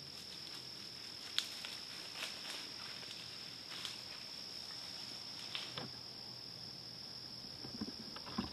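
A steady, high, even insect trill, with a few faint clicks and rustles; one sharper click about a second and a half in.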